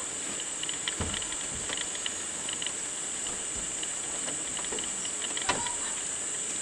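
Steady high-pitched chorus of insects, with scattered faint clicks and a few soft knocks, the clearest about a second in and about five and a half seconds in.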